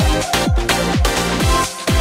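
Electronic dance music with a steady kick drum, about two beats a second, under sustained synth chords.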